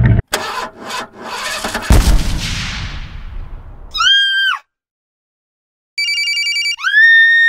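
Added sound effects of a toy boat's outboard motor failing: a few sputtering bursts, then a bang that fades out over about a second and a half. Then come electronic tones: a short one that rises, holds and falls, a gap, a quick run of beeps, and a longer rising-and-falling tone near the end.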